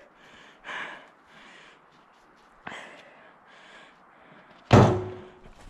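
Footsteps crunching in snow, a soft crunch every half second to second, then about three quarters of the way through a loud thump with a short ringing tail, as of a firewood round being dropped or thrown.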